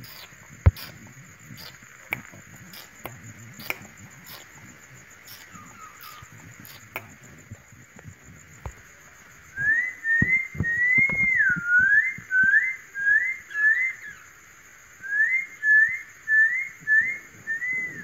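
Whistling: two runs of short rising whistled notes, about two a second, starting about halfway through, with one longer note that dips and rises. Before them, faint clicks over a thin steady high tone.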